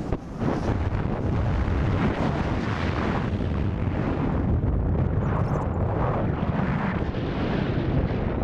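Wind buffeting the camera microphone during a paraglider flight: a loud, fluctuating rush, heaviest in the low end.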